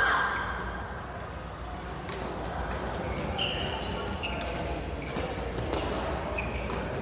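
Badminton play in a large hall: sharp racket hits and footfalls on the court mat, with several short high shoe squeaks as players push off and stop, and some chatter from around the hall.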